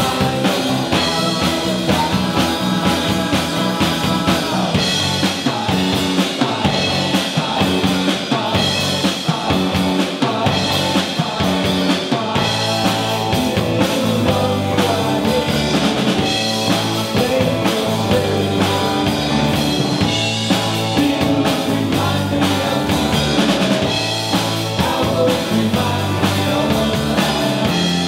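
Live rock band playing a song: drum kit, electric bass, electric guitar and keyboard, with a lead vocal sung at the microphone.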